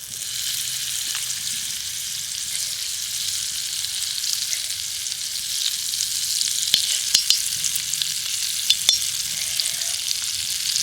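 Butter melting and sizzling in a hot kadai: a steady hiss, with a few light clicks in the second half.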